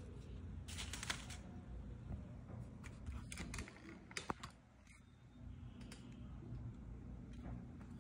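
Scattered light clicks and taps of small things being handled and set down on a table, over a low steady hum.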